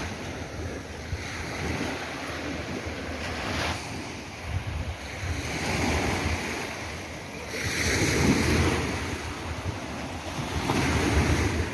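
Sea waves breaking and washing ashore, rising and falling in repeated surges, with wind buffeting the microphone.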